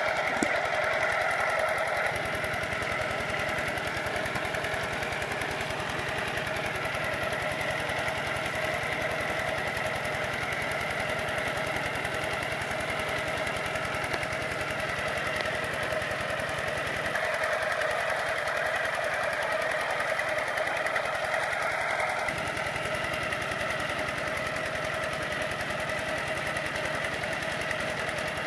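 Kubota RT120 single-cylinder diesel engine on a two-wheel walking tractor, running steadily under load in a rapid, even chatter as the tractor pulls through deep paddy mud.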